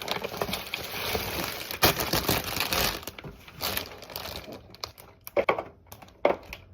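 Plastic food packaging crinkling and rustling as it is handled, dense for the first few seconds and then thinning to scattered crackles and taps.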